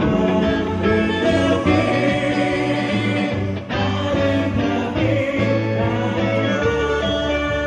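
Live praise band playing a worship song: electric guitar, electric bass, drum kit and keyboards together, with one brief dip in level about halfway through.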